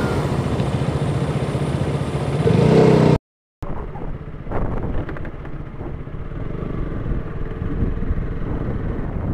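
KTM RC motorcycle engine running on the move, getting louder as it is revved about two and a half seconds in. The sound cuts off abruptly just after three seconds, then resumes as a duller, steady engine sound with a few light knocks.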